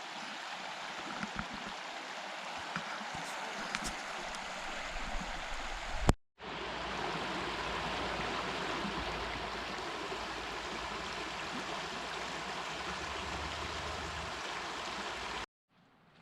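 River water rushing steadily. The sound cuts out for a moment about six seconds in and comes back louder with a low rumble underneath, then drops away again near the end.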